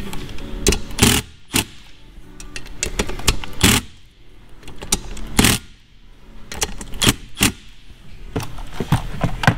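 Cordless impact driver run in short bursts, hammering the alternator's housing bolts tight, about eight times with pauses between.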